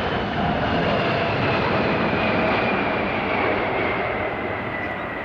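Boeing 747-400 airliner's four turbofan engines running loud and steady, with a faint whine that slowly drops in pitch.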